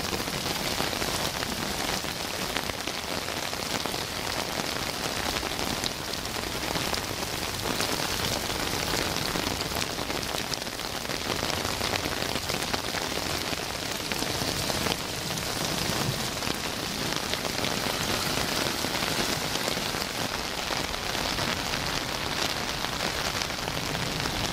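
Heavy rain falling steadily: an even hiss with many scattered drop ticks.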